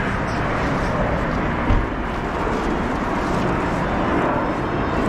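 Busy city street ambience: a steady wash of traffic and crowd noise, with one brief low thump about a second and a half in.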